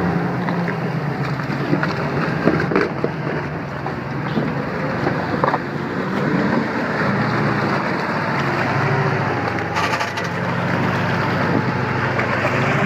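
Heavy off-road truck engine running steadily under load, with scattered knocks and crunches over it.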